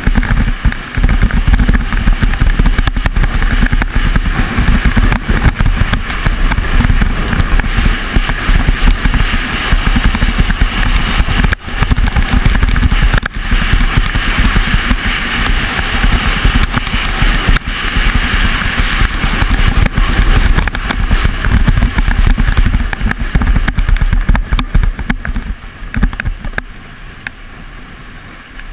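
Skeleton sled's steel runners scraping and rattling over bobsleigh-track ice at high speed, with wind buffeting the helmet-mounted microphone: a loud, continuous rumbling roar. The noise eases off near the end as the sled slows.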